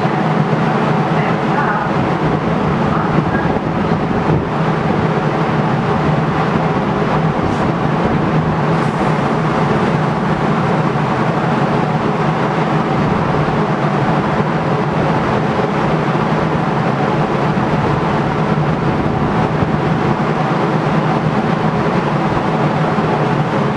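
DART light rail train running, a steady loud hum with several held tones and no clear change.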